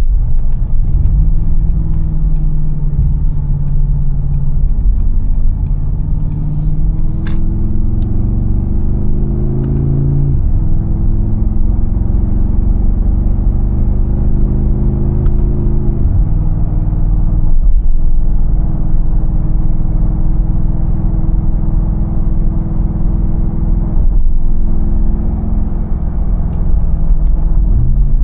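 Mercedes-AMG G63's 4.0-litre twin-turbo V8 accelerating through the gears: the engine pitch climbs, drops sharply at an upshift about ten seconds in, climbs again and drops at a second upshift around sixteen seconds, then holds steady at cruise.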